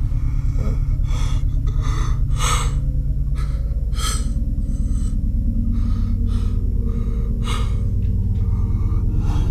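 A man gasping and breathing heavily, about a dozen sharp, ragged breaths, over a steady low droning score.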